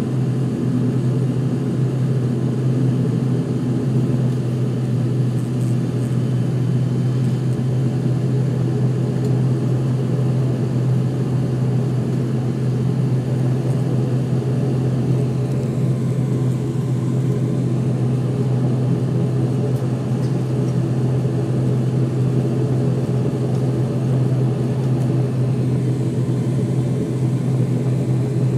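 Steady drone of an ATR 72-500's Pratt & Whitney PW127 turboprop engines and propellers heard inside the cabin: a constant low hum with a rushing noise over it.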